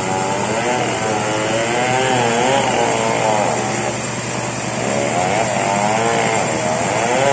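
Chainsaw running hard as it cuts into a large merbau log, its engine pitch rising and falling as the cut loads and eases, with a brief dip about halfway through.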